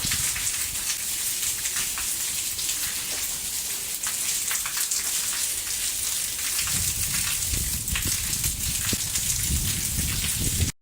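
Heavy rain falling, a steady hiss with many individual drops hitting close by. A low rumble comes and goes in the second half.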